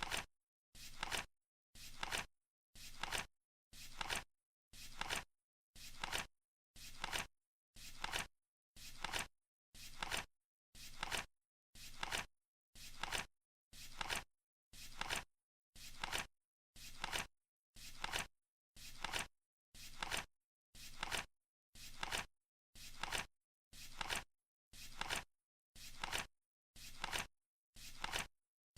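Flip-clock countdown timer ticking once a second: a short flip-tick each second, evenly spaced, with silence between, as the seconds count down.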